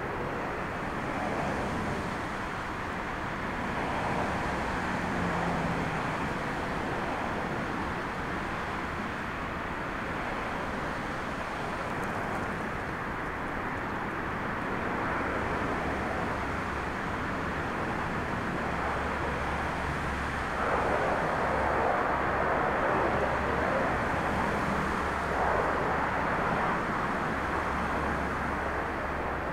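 Aircraft engine noise: a twin-turboprop airliner taxiing with a steady propeller hum, then the engines of an Airbus A320-family jet rolling along the runway. The jet noise grows into a deeper rumble and gets louder about two-thirds of the way in.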